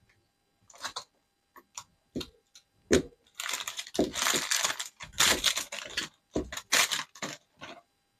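Clear plastic packaging bag stuffed with paper being crumpled and handled: a run of crinkling and crackling, densest through the middle few seconds.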